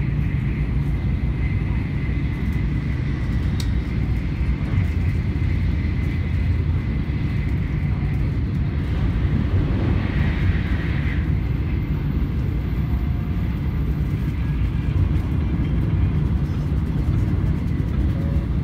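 Cabin running noise of a Tokaido Shinkansen bullet train travelling at speed: a steady low rumble, with a faint high whine through the first half.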